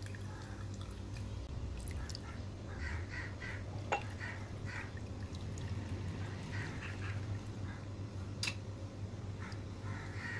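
A metal spoon stirring wet cheese curds in a cotton cloth lined metal strainer, with two sharp clicks of the spoon on metal, over a steady low hum.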